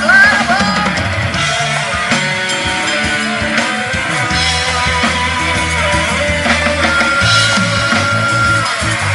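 Rock band playing: electric guitars, keyboard and drum kit with a steady beat, in an instrumental passage just after a sung line ends. A long high note is held near the end.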